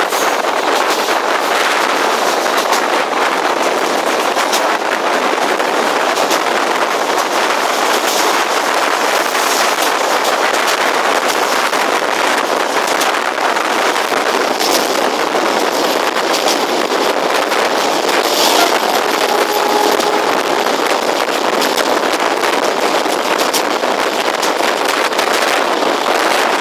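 Steady rush of air and running noise of a moving passenger train, heard from an open window with no change in speed.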